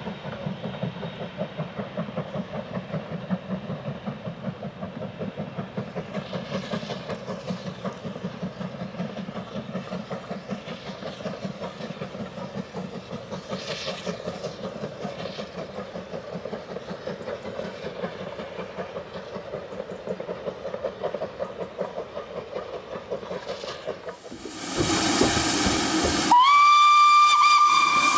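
Distant steam locomotive working a train uphill, its exhaust beats coming in a fast, even rhythm. Near the end, much louder and close by, a locomotive sends out a burst of steam hiss, then a long steady steam whistle, as the LNER B1 locomotive 'Mayflower' starts away.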